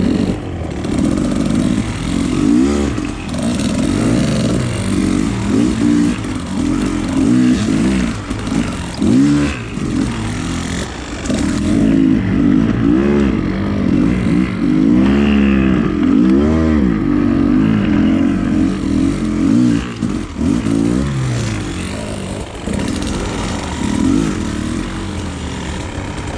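Dirt bike engine revving up and down as it is ridden off-road, its pitch rising and falling again and again as the throttle is opened and closed.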